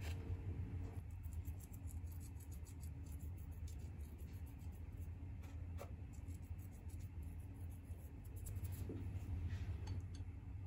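Quiet kitchen handling sounds: many faint light clicks and rustles over a steady low hum.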